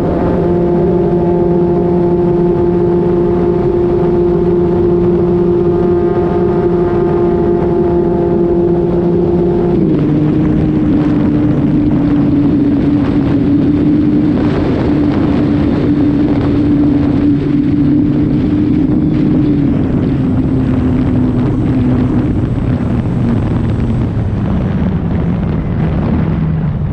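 FMS Super EZ RC plane's electric motor and propeller whining steadily in flight, heard from a camera on the plane, with wind rushing past. The pitch drops in a step about ten seconds in and a few more times later as the power comes back while the plane comes down low over the grass to land.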